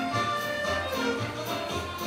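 Scottish country dance music: a jig played at a steady dancing beat, with repeating bass notes under the melody.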